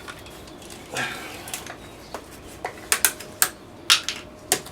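A short rustle about a second in, then a string of about seven sharp, uneven clicks and taps as the new oil filter and the oil bottle are handled before the filter's gasket is oiled.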